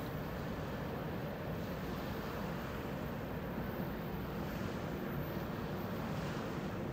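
Steady shoreline ambience: an even rush of wind and small waves, with no distinct events.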